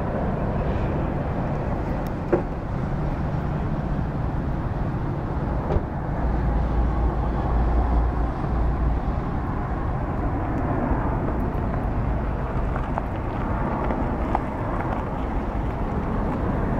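Boeing C-17 Globemaster III's four Pratt & Whitney F117 turbofan engines in a steady, deep jet rumble as the transport flies low overhead, loudest about halfway through.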